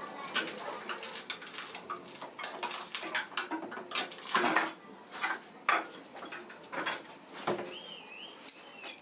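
Irregular metallic clinks and clatter, many sharp knocks at uneven intervals, with a short warbling high tone near the end.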